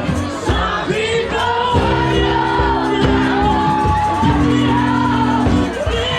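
Music with a singing voice over held keyboard-like chords; the sung line glides and holds long notes.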